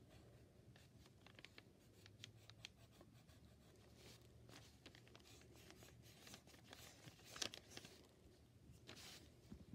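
Faint scratching of a pencil sketching on paper in short strokes, the loudest about seven and a half seconds in and again near nine seconds.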